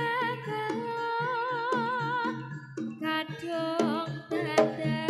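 Javanese gamelan music over a sound system: struck metallophone and gong notes with drum, under a sustained, wavering sung melody. The strikes grow busier and louder in the second half.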